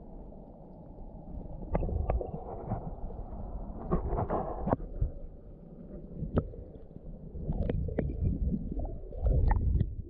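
Creek water heard through a submerged camera: a muffled low rumble of moving water, swelling a few times, with scattered sharp clicks and knocks.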